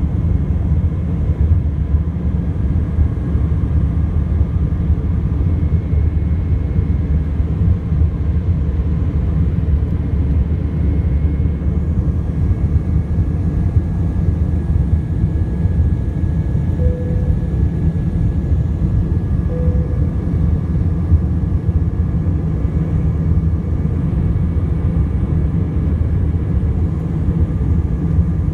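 Steady jet engine and airflow rumble heard inside the cabin of an Airbus A319-100 in flight shortly after takeoff, deep and even, with faint steady whines above it.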